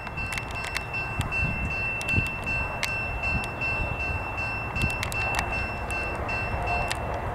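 Railroad grade-crossing bell ringing rapidly with a high, even ding that stops just before the end, over the low rumble of an approaching Norfolk Southern diesel-hauled train. Scattered sharp clicks are heard through it.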